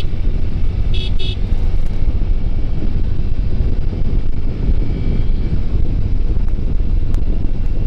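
Steady low rumble of wind and riding noise picked up by a BOYA BY-M1 lavalier mic inside a motorcycle helmet, the mic wrapped in its foam windscreen, a surgical-glove finger and a deadcat to damp the wind. Two short high beeps sound about a second in.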